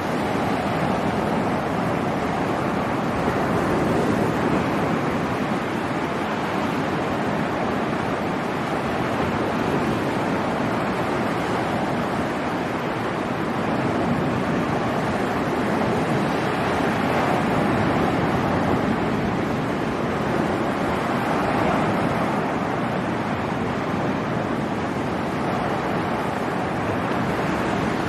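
Sea surf washing over a rocky shore: a steady rush that swells gently in loudness every few seconds.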